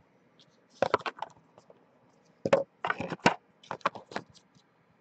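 Hard objects clacking and knocking on a tabletop in four quick clusters of sharp clicks, the sound of cards and plastic card holders being handled.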